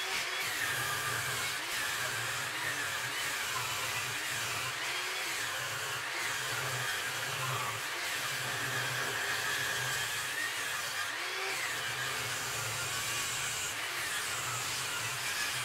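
Cheap bench table saw ripping a long black locust board, its motor and blade whine running steadily and repeatedly dipping and recovering in pitch as the blade loads in the hardwood.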